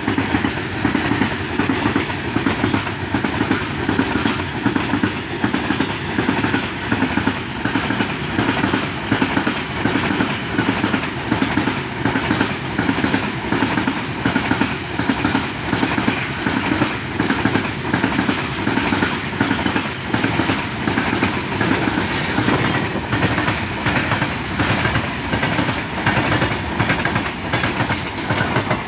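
Goods train wagons rolling past, loud, their wheels clattering over the rail joints in a steady, evenly spaced clickety-clack.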